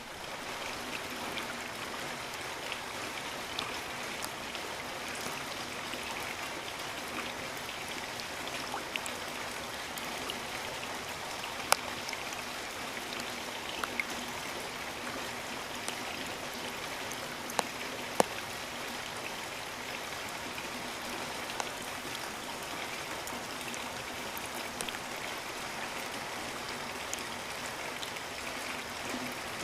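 Steady rain falling, a continuous hiss with scattered louder drops striking close by, the sharpest a little before the middle and again a bit after it.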